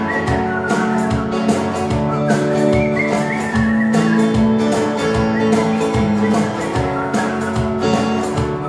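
Live band playing an instrumental passage of a country-style song: strummed guitar chords over a steady beat, with a high lead melody line above them.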